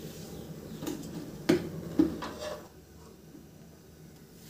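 Gas stove burner flame burning with a steady low rush, with a few sharp metal knocks as an iron wok is set down on the burner's pan supports, the two loudest about half a second apart. The flame noise quietens after about three seconds.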